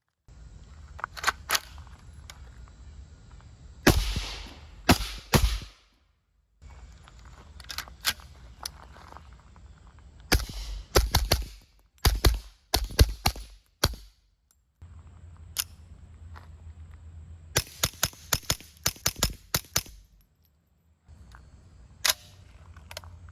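Suppressed gunfire from several rifles and pistol-calibre guns: single shots, pairs and rapid strings of shots, the fastest string about two-thirds of the way through.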